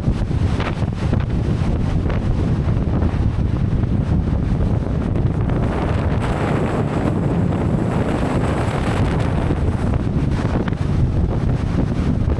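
Strong wind buffeting the microphone, a steady low rumble, with sea surf washing beneath it.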